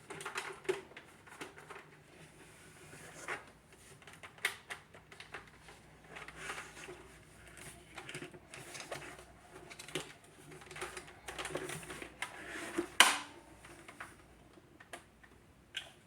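Plastic parts of a Shark Rotator vacuum being handled while something caught inside is cleared out: irregular clicks, taps and rustling, with one sharp knock about 13 seconds in.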